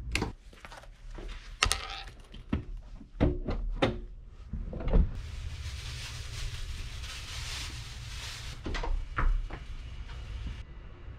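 Wall rocker light switches being clicked on one after another: a run of sharp clicks and knocks over the first few seconds, followed by a steady hiss of noise for several seconds that cuts off suddenly.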